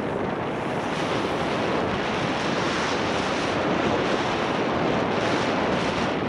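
Steady rush of wind buffeting an action camera's microphone while skiing downhill.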